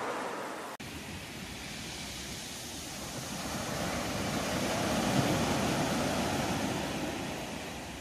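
Sea waves washing onto a beach. After a sudden brief dropout about a second in, the wash swells to its loudest around the middle and then fades away.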